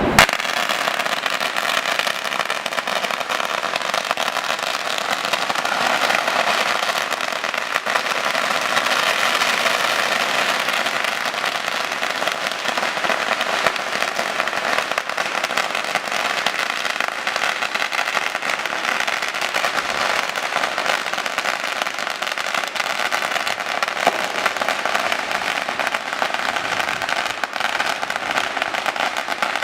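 Firecrackers and fireworks going off in a dense, continuous crackle of rapid pops, opening with one sharp bang.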